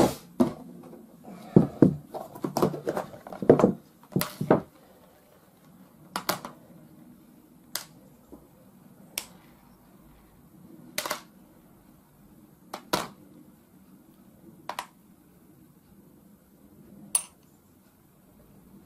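Small air rifle parts clicking and knocking as they are picked up and set down into a plastic tub: a busy run of clicks in the first four or five seconds, then single sharp clicks every second or two.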